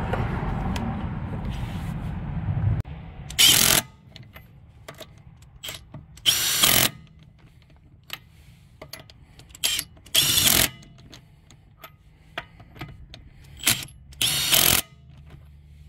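A power tool with a socket on an extension spinning wheel lug nuts down in four short bursts, each about half a second and a few seconds apart, with light clicks between them. Before the first burst there are about three seconds of low rumbling noise.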